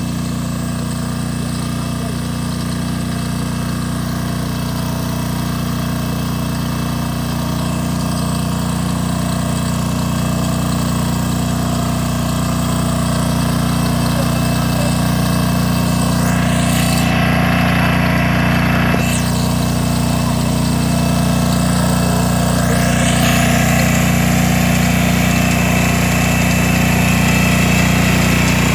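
Walk-behind two-wheel tractor's engine running steadily as its rotary ridging attachment cuts through soil, a constant low hum.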